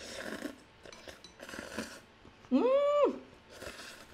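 Somen noodles being slurped off chopsticks in three short hissing slurps. A short hummed vocal sound, rising in pitch then held, comes about two and a half seconds in and is the loudest thing.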